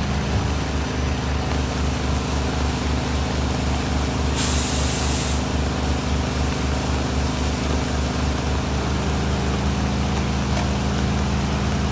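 Fire apparatus diesel engine idling steadily under the constant hiss of rain. About four seconds in comes a sharp hiss lasting about a second.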